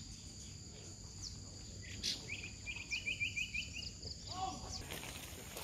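Insects in roadside tropical forest calling steadily in two high, unbroken tones, with a quick run of about eight high chirps a little over two seconds in and a short lower call about four seconds in.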